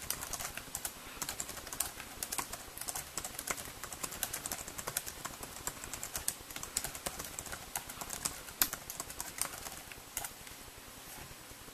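Fingers typing on the small built-in keyboard of a ViliV S7 UMPC: quick, irregular key clicks that stop about ten seconds in.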